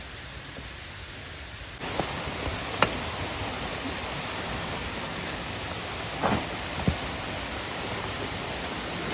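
Steady rush of a mountain stream and waterfall, stepping louder about two seconds in, with a few short knocks on top.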